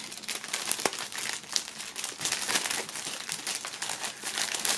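Clear plastic film bag crinkling and rustling as hands pull items out of it, with irregular crackles and a sharper tick about a second in.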